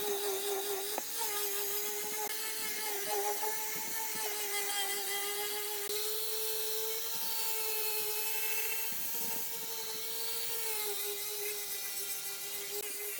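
Electric power tool motor running steadily on wood, a continuous high whine that wavers slightly in pitch as the load changes.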